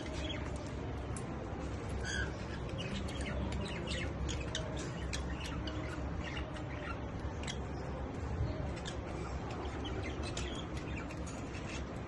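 Caged lovebirds chirping: a busy, irregular run of short, high chirps, several a second, over a steady low rumble.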